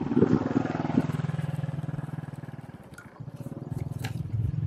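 A small engine running with a fast, low chugging that dips about three seconds in and then picks up again.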